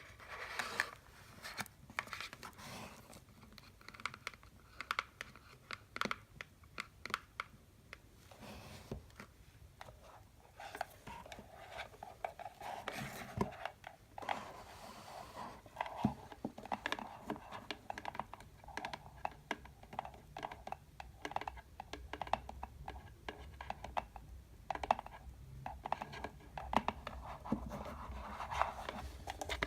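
Fingers tapping and scratching on candy boxes: quick, irregular taps with short stretches of scratching.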